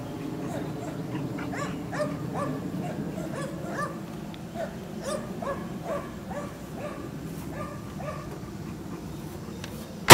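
A dog yipping and whining over and over in short pitched calls, with a steady low hum underneath; a single loud knock right at the end.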